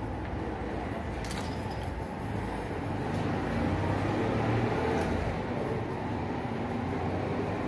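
Steady low rumbling noise, with a faint click about a second in and another near five seconds.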